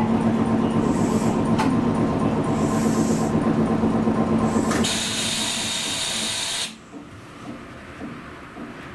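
Hankai Tramway tram running with a steady motor hum and rail noise. About five seconds in, a loud hiss of released compressed air lasts about two seconds, and then the running noise falls away as the tram comes to rest.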